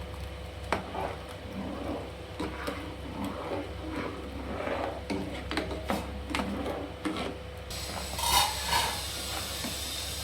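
Kitchen utensil scraping and knocking irregularly, a run of light clicks and scrapes over a steady low hum. About three-quarters of the way through, a hiss sets in with two louder bursts.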